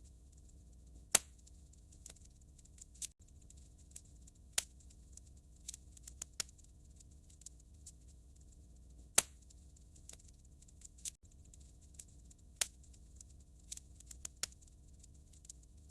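Fire in a fireplace crackling: irregular sharp pops and small crackles, with a few much louder pops spread through, over a faint low rumble.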